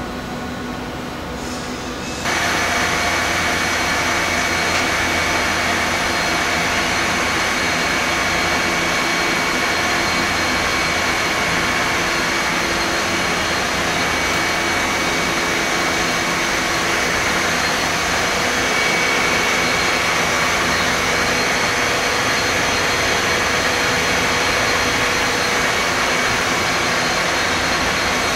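Forming spring machine running with a steady mechanical whir and a high whine, growing suddenly louder about two seconds in and then running on evenly.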